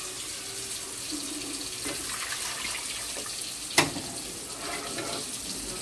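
Kitchen tap running steadily into a sink, with one sharp knock about two-thirds of the way through.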